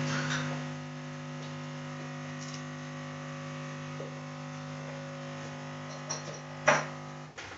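A steady electrical hum made of several steady pitched tones, a little louder in the first second. Near the end come a few light clicks and a sharp knock, and the hum then cuts off suddenly.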